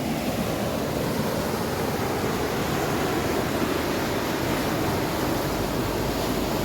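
Steady rushing noise with no distinct events, and a low rumble that grows stronger in the last couple of seconds.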